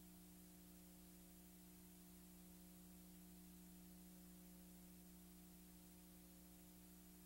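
Near silence: a faint steady electrical hum with hiss, the recording's background noise.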